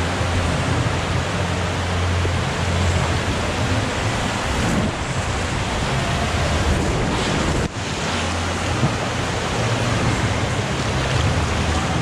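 Water rushing and splashing down an inner-tube water slide, heard from the rider's seat, with a steady loud hiss of water and air on the microphone.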